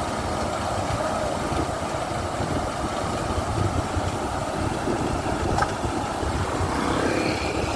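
Thai Seng Yont rice combine harvester running steadily, with one sharp click a little past halfway.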